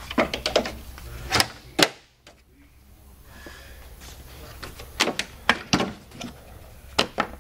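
Sharp plastic clicks and knocks from the plastic access covers over a Land Rover Discovery Series II's headlights as they are unclipped and handled. The clicks come in two clusters: several in the first two seconds, then more from about five seconds in.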